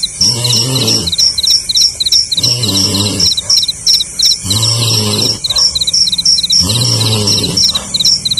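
A sleeping person snoring, a low rasping snore just under a second long repeating about every two seconds, four times. Behind it, a cricket chirps steadily at about three chirps a second.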